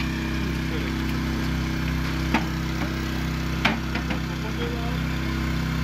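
Steady low hum of a running engine or machine, with two short sharp knocks about two and a half and three and a half seconds in.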